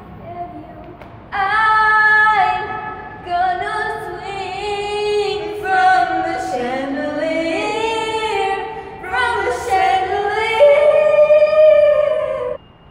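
Two girls singing a slow, sustained melody together, their voices echoing in a tiled pedestrian tunnel. The singing starts about a second in and stops just before the end.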